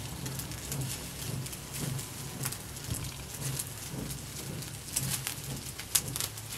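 A flat hand fan being waved over a charcoal grill, making rhythmic puffs of air about twice a second, with light crackles from the coals and a sharp snap near the end.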